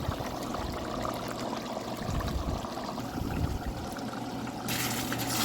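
Thick sambal simmering and bubbling in a pan, with low plops as bubbles burst, cooking down until the oil separates. A brighter hiss comes in near the end.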